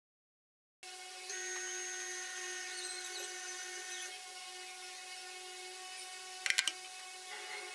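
A steady whine of several held tones begins after a brief silence, with its highest tones dropping out around four seconds in and a quick cluster of clicks about six and a half seconds in.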